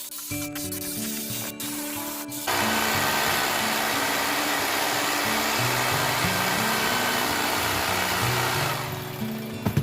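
A power tool runs steadily on wood from about two and a half seconds in until near the end, over background music. A few sharp clicks come before it starts.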